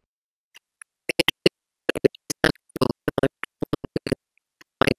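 Mouth clicks and lip smacks taken out of a woman's dialogue recording, heard on their own through iZotope RX Mouth De-Click's 'output clicks only' preview with the Reduce Smacks preset. After about a second of quiet, an uneven string of short, sharp clicks and smacks follows: the mouth noise that the tool is removing.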